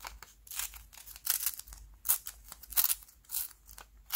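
A sheet of black origami paper torn by hand in a series of short rips, about seven in a row, each a brief crisp tear.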